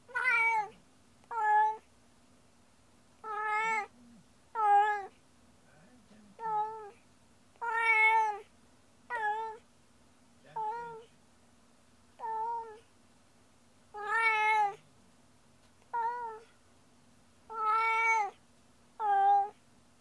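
A domestic cat meowing over and over, about thirteen loud calls, some short and some drawn out, one every second or two.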